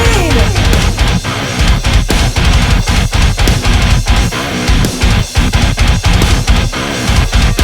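Loud, aggressive heavy rock music with electric guitar and a driving drum beat; a falling pitch glide opens it.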